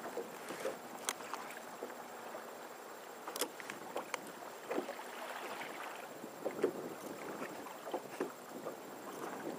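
Water lapping against a plastic fishing kayak's hull, with scattered small irregular knocks and clicks of gear on the boat.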